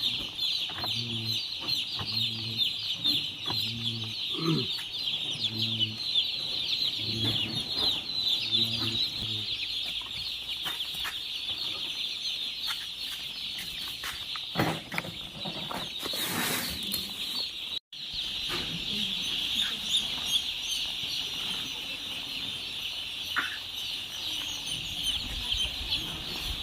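A large flock of Vencobb broiler chickens in a poultry shed, many birds calling at once in a dense, continuous high-pitched chatter.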